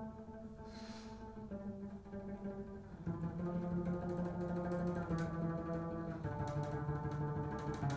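Double bass playing a slow line of long held notes that step downward in pitch, each ringing for a second or more.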